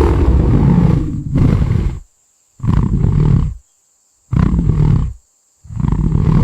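Lion roaring: one long deep roar, then three shorter roars about a second and a half apart.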